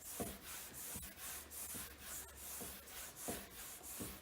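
Nylon/cork tuning brush scrubbed back and forth along a freshly waxed snowboard base to polish the wax: a rhythmic brushing hiss of about two strokes a second, with a soft knock at each turn.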